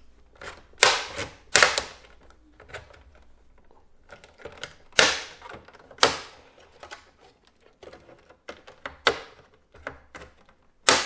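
Plastic clips of an Xbox One S bottom cover snapping loose as the cover is pried off: a series of sharp clicks and snaps, with smaller ticks and taps in between.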